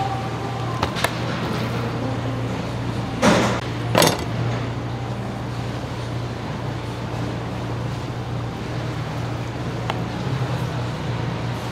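Knife work on salmon at a plastic cutting board over a steady low machine hum. Two short, loud knocks come about three and four seconds in, with a few light clicks around them.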